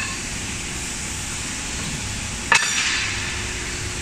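A single sharp metallic clang with a brief ringing tail, about two and a half seconds in, over a steady hum of workshop machinery.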